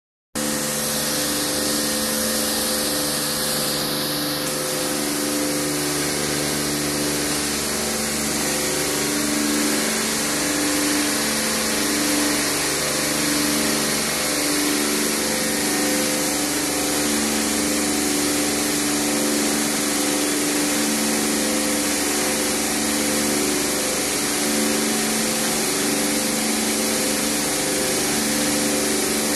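Water jets spraying in an automatic tunnel car wash, a steady hiss over the hum of the wash machinery's pumps and motors. The hum is a set of tones that pulse on and off about once a second.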